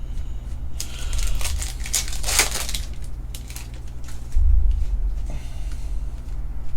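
Crinkling and tearing of a foil trading-card pack wrapper as it is opened and handled, with a low bump about four and a half seconds in.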